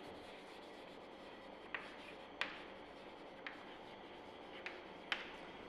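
Chalk writing on a chalkboard: faint scraping with a few light clicks as the chalk strikes the board.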